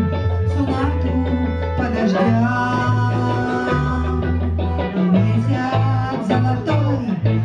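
Live band music: electric guitar over a bass line of held low notes that change every second or so, with a woman singing into a microphone.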